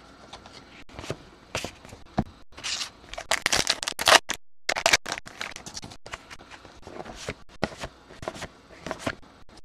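Trading cards and a pack wrapper handled by hand: a string of rustling, scraping and crinkling noises, busiest and loudest in the middle, with the sound cutting out for a moment a little past four seconds in.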